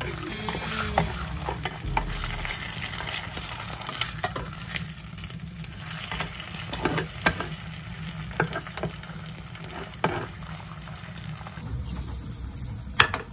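Egg and a slice of ham sizzling in a square non-stick egg pan, with a spatula scraping and clicking against the pan as the ham is flipped over the egg. The sizzle drops away about twelve seconds in, and a couple of sharp knocks follow near the end.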